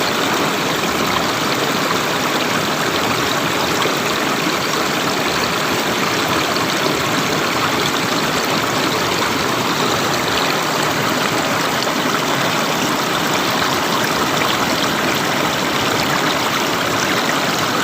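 Flowing river water, a steady rushing.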